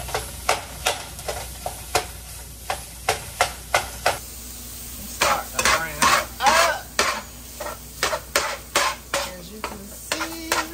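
Metal spatula scraping and stirring crumbled sausage as it browns in a frying pan, in quick repeated strokes about two or three a second, over a steady sizzle.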